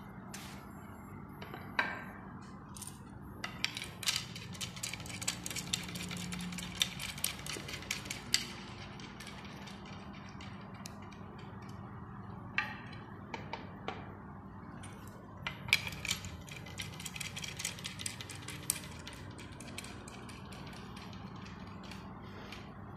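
Ratchet wrench tightening bolts while a swivel bar stool is put together: two runs of rapid ratcheting clicks, several seconds each, with a few single metallic knocks between them.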